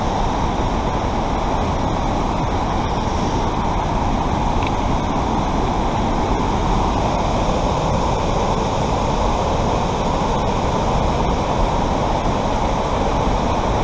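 Waterfall and creek in a gorge, swollen by heavy rain and hail, with water rushing as a steady, even rumble.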